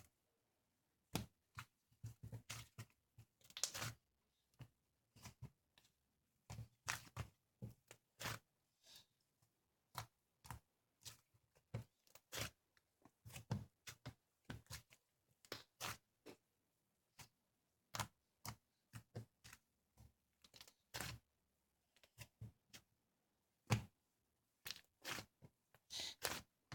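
Slime being pressed and poked by hand, making sharp, irregular clicks and crackles a few times a second, with short pauses between them.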